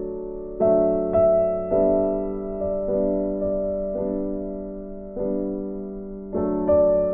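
Slow, soft instrumental background music: single struck notes roughly every half second, each ringing and fading before the next.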